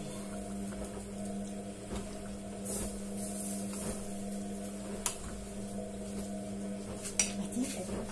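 A utensil stirring noodles in a stainless steel pot, with a few sharp clinks of utensil on metal about two, five and seven seconds in, the last the loudest. A steady low hum runs underneath.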